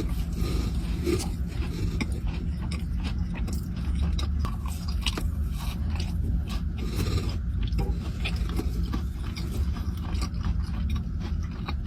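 A person chewing a cookie close to the microphone, with many small, irregular mouth clicks over a steady low hum.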